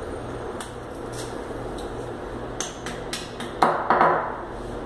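Small fixing parts being handled against a ceramic-tiled wall: a scattering of light clicks and taps, with two louder knocks near the end, over a steady hiss and low hum.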